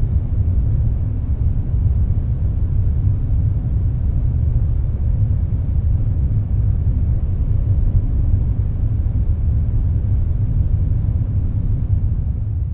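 Dark ambient loop of steady, low wind rumble with a faint hiss above it and no distinct gusts or drops.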